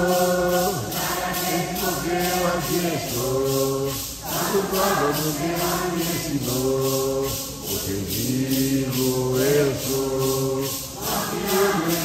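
A large group singing a Santo Daime hymn in Portuguese, with long held notes, over maracas shaken in a steady beat of about two to three strokes a second.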